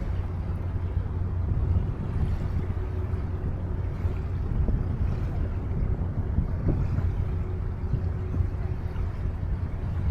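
Steady riverside ambience on a wide river: a low rumble of wind and water with a faint, constant hum running through it.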